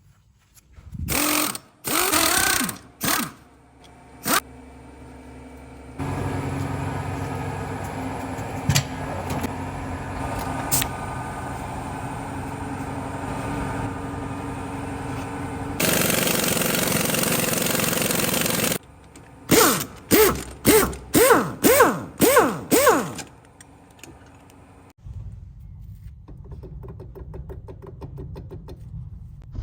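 Workshop power tools at work on a wheel hub: a few short bursts, then a steady machine run for about ten seconds that grows louder for its last three, then about eight quick bursts in a row.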